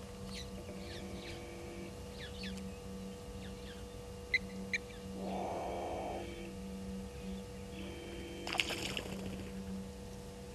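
An unidentified wild animal sound: a breathy noise about five seconds in and a short rasping burst near the end. Faint high chirps and a steady low hum run underneath.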